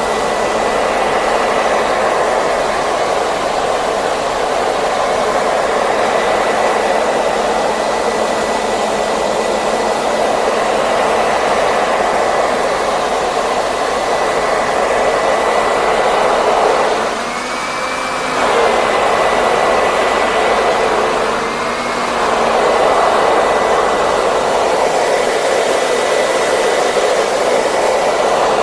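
Hair dryer running steadily: a constant rush of air over a thin, steady motor whine. Twice, about two-thirds of the way through and again a few seconds later, the rush dips briefly while the whine rises in pitch and settles back.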